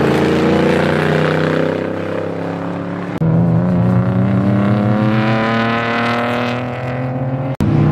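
Race car engines accelerating along the circuit, the pitch rising steadily as they pull through the revs. The sound jumps abruptly to a louder engine about three seconds in, and drops out for an instant near the end.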